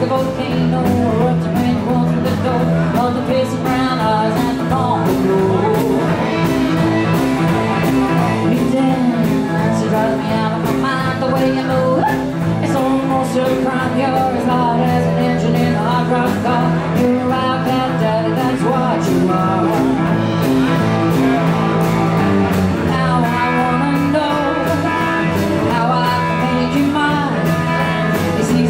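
Live rock-and-roll band playing with electric guitar, acoustic guitar, upright double bass and drums over a steady drum beat, with a singer's voice on top.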